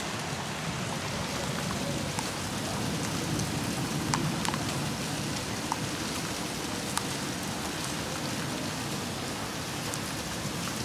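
Heavy rain falling steadily and splashing on wet surfaces, with a few sharp taps of drops striking something close by.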